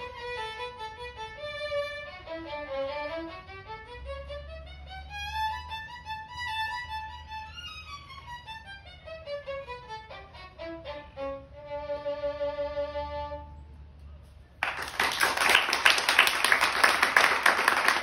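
Solo violin playing a lively tune in quick runs of notes down and up, ending on a long held note. About a second after the last note, loud applause begins and carries on.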